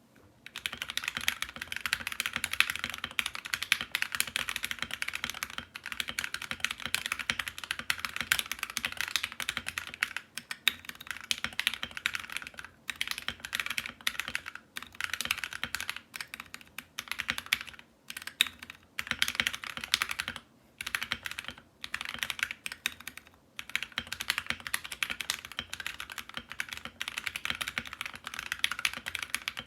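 Fast typing on a Drop Alt Low-Profile mechanical keyboard with lubed Gateron Ink Black V2 linear switches and Akko ASA keycaps: a dense, steady run of keystrokes, broken by a few short pauses midway.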